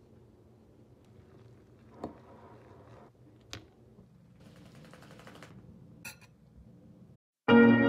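Quiet room sound with a few light clicks of a metal fork against a bowl of noodles, and about a second of soft scraping in between. Loud music comes in abruptly at the very end.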